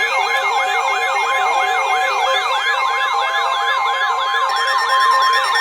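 Electronic emergency alert tones: a fast yelping siren sweep repeating about three to four times a second, layered with steady tones and a stepping two-note beep, with a steady high tone joining about two seconds in. The alert signals a severe thunderstorm warning.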